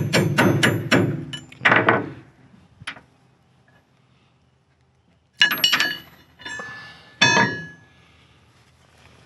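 Hammer tapping on a steel PTO driveline yoke to drive out a universal joint bearing cup: a quick run of sharp, ringing metal taps in the first two seconds. After a lull, a few ringing metallic clinks and clanks come about halfway through as the loosened U-joint parts are handled on a steel deck.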